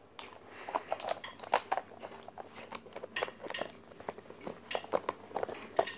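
Hard plastic dog puzzle toy clicking and knocking irregularly as a puppy noses and paws at it.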